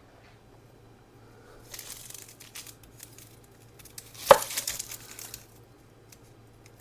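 Papery onion skin crinkling and tearing as yellow onions are peeled, in two spells of rustling, with one sharp knock about four seconds in.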